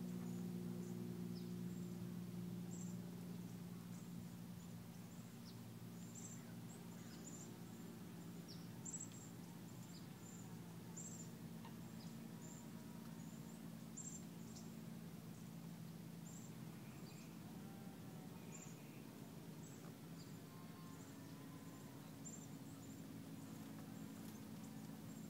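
Faint lakeside ambience: small birds give short, high chirps at irregular intervals over a steady low hum.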